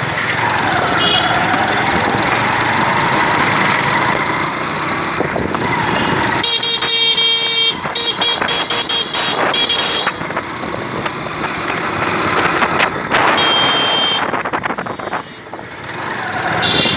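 Vehicle horn honking in street traffic: one long blast about a third of the way in, a quick run of short toots around the middle, and another long blast later on. Steady wind and traffic noise from riding runs underneath.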